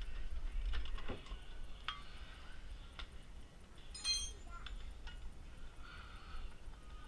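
Scattered metallic clicks and clinks of a wrench and hand tools working on rear suspension bolts, with a brief ringing clink of metal about four seconds in.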